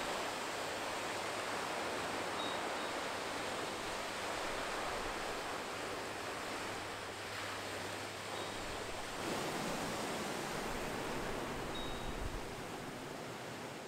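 Small waves breaking and washing on a gravel shore: a steady rush of surf.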